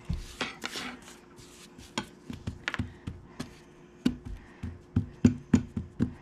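Hands patting and pressing a flour-dusted biscuit dough flat on a countertop: soft rubbing at first, then a run of irregular taps and pats on the counter, coming quicker in the second half.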